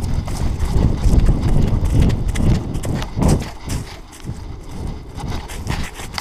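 Belgian Malinois galloping with a camera strapped to its back: a rhythmic thudding of its running strides and the jolting mount, several beats a second, loudest in the first half.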